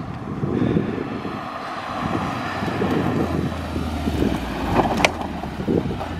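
BMW Z3 roadster driving up and pulling off onto a grass verge, its engine and tyres heard over wind buffeting the microphone. A single sharp click sounds about five seconds in.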